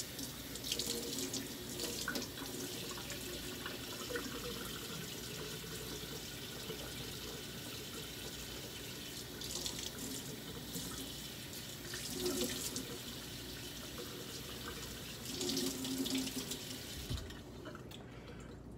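Kitchen faucet running into a stainless steel sink, the stream splashing over hands rinsing a flounder fillet. The splashing gets louder a few times as the hands move under the water, and the tap is shut off near the end.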